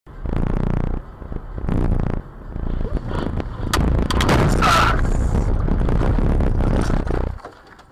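Car crash heard from a dashcam: loud vehicle noise, then a collision with several sharp bangs and crunching about four seconds in. The sound drops away suddenly near the end.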